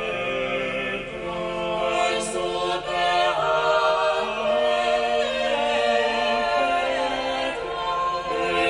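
Background choral music: unaccompanied voices singing long held notes that move in steps.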